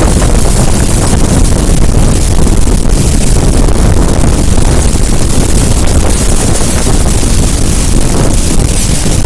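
Waterfall's steady, loud roar of falling water, with wind buffeting the microphone.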